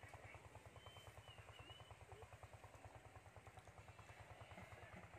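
Near silence, with the faint low steady throb of a distant engine running, and a few faint high chirps about a second in.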